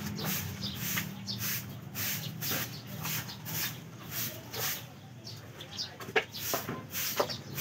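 Broom sweeping, brisk strokes about twice a second, with a couple of sharper knocks near the end.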